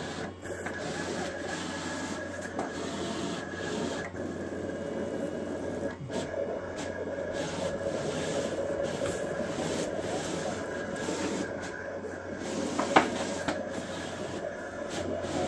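Roland GX-24 servo vinyl cutter contour-cutting printed vinyl: its servo motors whir as the blade carriage and rollers drive the vinyl back and forth, the blade rubbing through the film. A single sharp click near the end.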